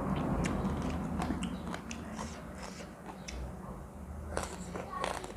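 A person chewing and biting food close to the microphone, with irregular crunches and wet mouth clicks.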